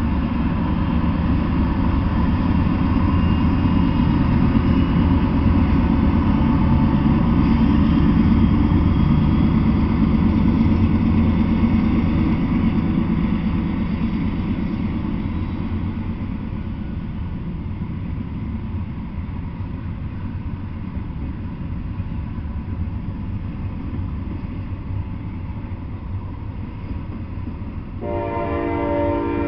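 Diesel freight locomotives rumbling past at close range, followed by the steady rolling noise of double-stack intermodal well cars on the rails, slowly growing quieter. A horn sounds briefly near the end.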